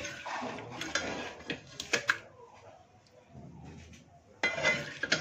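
Spoon scraping and clinking against a metal cooking pot as chicken masala is spooned onto layered rice. There are a couple of sharp clinks about two seconds in, and another scrape near the end.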